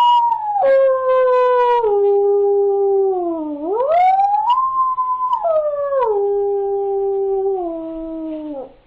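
A person imitating a wolf howl with their voice: two long howls, each sliding up in pitch and then stepping down in stages. The second begins about midway through.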